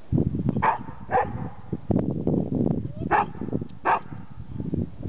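A German Shepherd-type dog barking four times in two pairs, sharp single barks of protest at being made to walk slowly on lead. A loud low rumbling noise runs under the barks.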